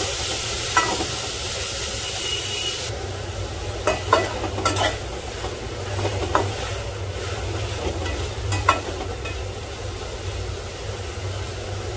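Slotted metal spatula stirring Malabar spinach seeds and shrimp in a metal pot over a steady sizzle, with sharp clinks of the spatula against the pot several times. The sizzling hiss drops abruptly about three seconds in.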